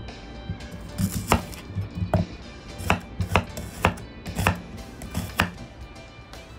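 Kitchen knife slicing through onion, then carrot, on a wooden cutting board: about eight sharp knocks of the blade hitting the board, unevenly spaced roughly every half second to second.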